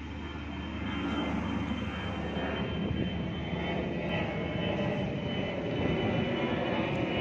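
A steady engine drone with a thin high whine over it, getting a little louder about a second in.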